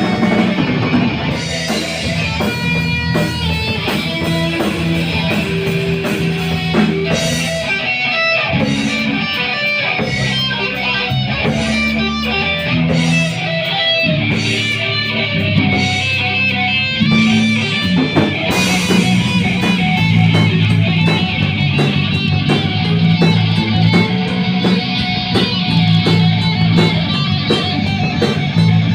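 Instrumental rock music: electric guitar playing over a moving bass line, with sharp regular strokes that suggest drums.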